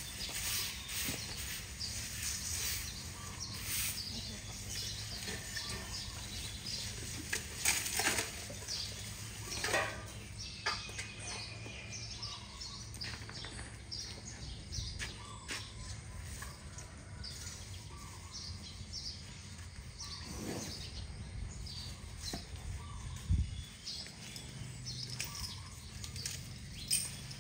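Dry grass and hay rustling and crackling in irregular bursts as the fodder is handled, with one dull thump late on.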